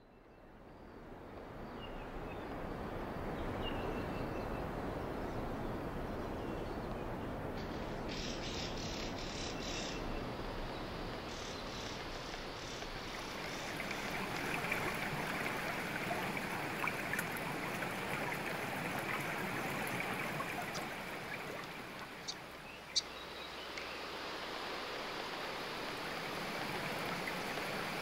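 Steady rushing of running water, fading in at the start, with a few faint bird chirps and a couple of sharp ticks near the end.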